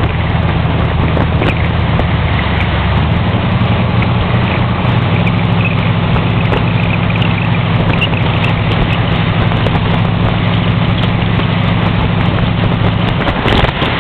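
Car engine running at cruising speed, its steady low note shifting about three and again five seconds in, then holding. Wind rushes over the hood-mounted microphone throughout.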